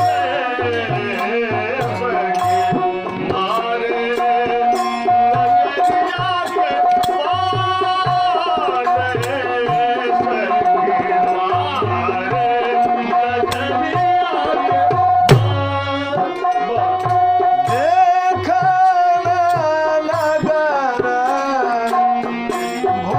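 Tabla playing a steady teen taal rhythm under a sustained, ornamented melody line, part of the instrumental accompaniment of a devotional folk song.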